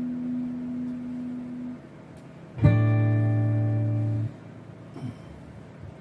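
Acoustic guitar: a held chord dies away, then about two and a half seconds in a single chord is strummed, rings for under two seconds and is cut off suddenly.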